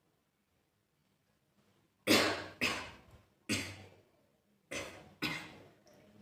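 A person coughing five times, starting about two seconds in: a pair of coughs, a single one, then another pair, each sharp at the start and trailing off.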